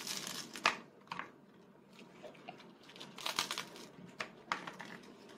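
Kitchen scissors cutting through a piece of baguette: a few short crunchy snips through the crust, with sharp clicks as the blades close.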